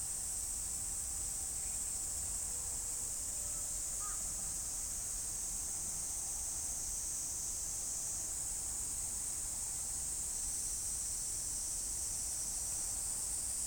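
Faint outdoor ambience: a steady high-pitched hiss over a low rumble, with a couple of faint brief tones and a short faint chirp about four seconds in.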